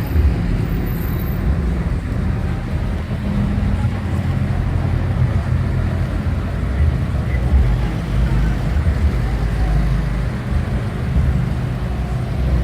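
Steady low rumble of motor vehicles running, engine and road noise, with faint voices underneath.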